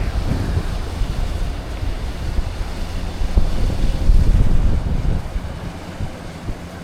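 Wind gusting on the microphone over the wash of sea waves, as a low rumble that swells a few seconds in and eases off near the end.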